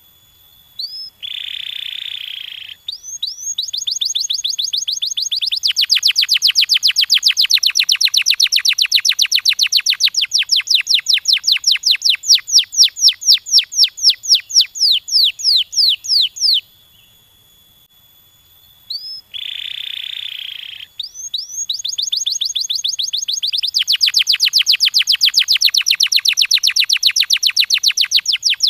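Domestic canary singing: each phrase opens with a short buzzy note, then runs into long trills of rapidly repeated notes. One phrase of about fifteen seconds, a pause of about two seconds, then the same song starts again.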